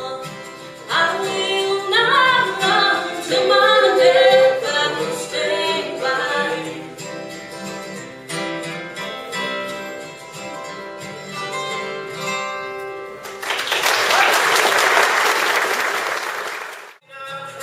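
A song sung to two acoustic guitars, with a sung melody over strummed and plucked strings, winding down. Near the end, audience applause lasts about three seconds and cuts off suddenly.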